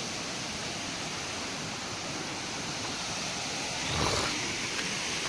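Steady rushing of a waterfall, with a brief low thump about four seconds in.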